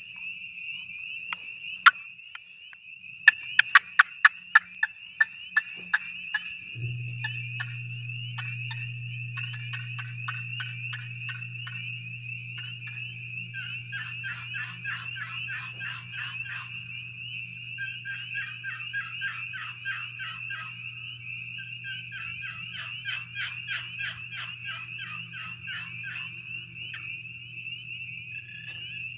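Maple-over-Honduran-mahogany short box turkey call played by hand, imitating a turkey. A quick run of sharp, evenly spaced pops comes a few seconds in, followed by several series of rapid repeated yelping notes.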